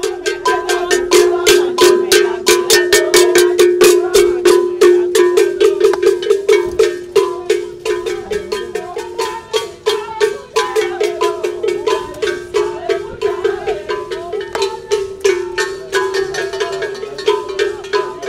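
A metal bell rung rapidly and steadily, several strokes a second, over one held ringing pitch.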